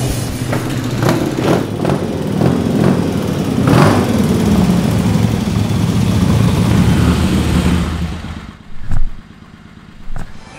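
Several motorcycle engines running together and revving, one rev rising about four seconds in. Near the end the engine sound drops away, leaving a loud thump and a softer knock.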